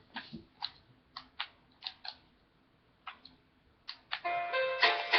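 A series of irregular sharp clicks, about two a second, with a short pause in the middle. About four seconds in, music with sustained chords begins: the song's instrumental intro.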